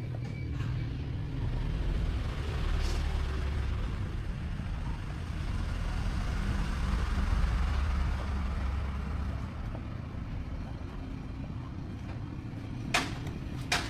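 An engine running with a low rumble that swells over the first several seconds and then eases off, with two sharp clicks near the end.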